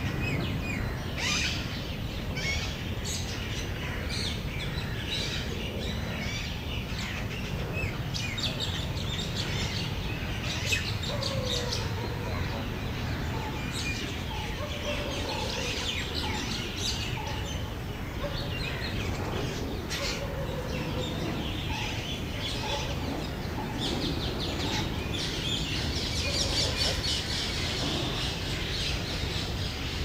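Several songbirds chirping and singing together in a busy chorus of short high chirps and trills, over a steady low rumble.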